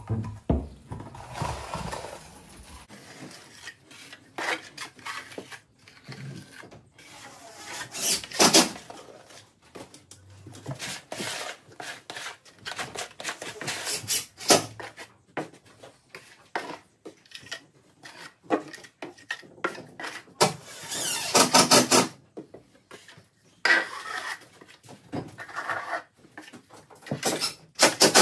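Building work on a timber frame: irregular knocks, taps and scraping of tools and timber being handled. There are a few louder spells of clatter, the longest a bit over 20 seconds in.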